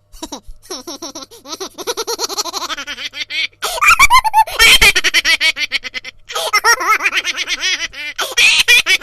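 A funny laughter ringtone: high-pitched laughing in long runs of rapid ha-ha bursts, with two short pauses.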